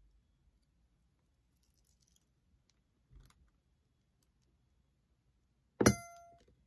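Single-wire acrylic soap cutter coming down through a loaf of cold process soap: one sharp clack just before six seconds in, with a short ringing tone that fades quickly. A faint soft brush of movement a little past three seconds.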